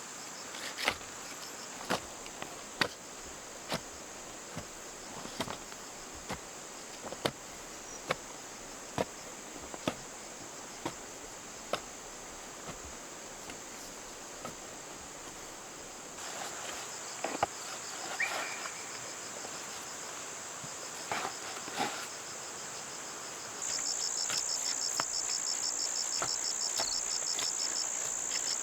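Steady, high-pitched insect chorus, with a rapid pulsing chirp coming in louder near the end. Through the first half, sharp knocks sound about once a second.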